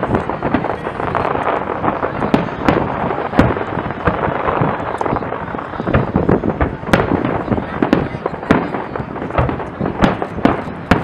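Aerial fireworks shells bursting in quick succession: an unbroken string of sharp bangs and pops, several a second at times.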